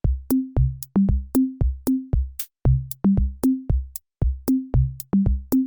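Electronic music: a drum-machine beat of sharp hits about four a second, with short low bass notes.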